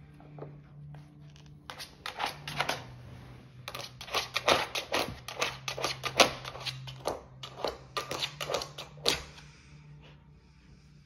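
Nina Ottosson Level 3 plastic dog treat puzzle clicking and rattling as a dog noses and paws at its drawers and bone-shaped pegs. The quick irregular clicks start about 2 s in, come thickest from about 4 to 9 s, then stop.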